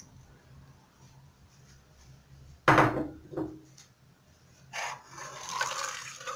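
A sharp knock about two and a half seconds in, with a lighter one just after, then liquid sloshing as a ladle stirs the watery soup in a steel pot.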